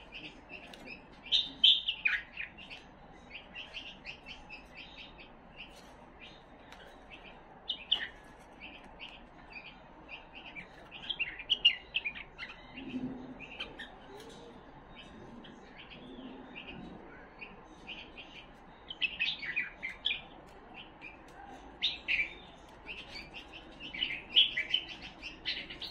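Himalayan bulbul (white-cheeked bulbul) singing: short bursts of quick, chirpy notes every few seconds, with quieter gaps between.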